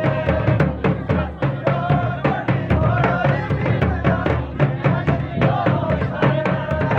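Folk dance music, with drums beating a steady rhythm under a wavering melody line.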